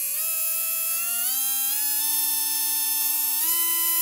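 Kyosho LeMans 480 Gold brushed electric motor, freshly rebuilt with new brushes, running free with a high whine that climbs in pitch in several steps as the voltage is turned up toward 7.2 volts.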